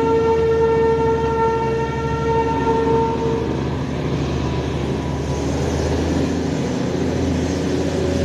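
Diesel train horn of a Darjeeling Himalayan Railway narrow-gauge train, holding one long steady note that cuts off about three and a half seconds in. The low rumble of the train running along the track carries on underneath.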